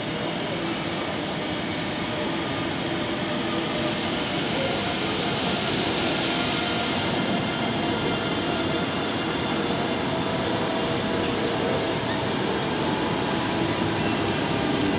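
Bombardier TRAXX electric locomotive running under the station roof as it pulls away, a steady hum of its fans and traction equipment with several held whining tones, growing slightly louder. A hiss rises over it from about four to seven seconds in.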